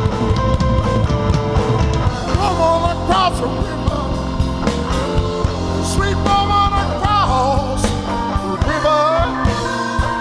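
Live rock band playing: a man singing over electric bass, electric guitar and drums, with bending guitar or vocal lines over a steady beat.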